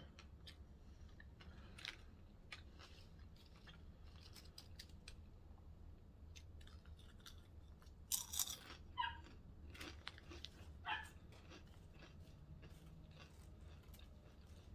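A person chewing a sandwich close to the microphone: quiet wet mouth clicks and crunches throughout, with a few louder crunches about halfway through.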